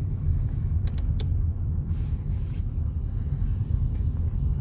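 Steady low road and engine rumble inside a moving car's cabin, with two light clicks about a second in.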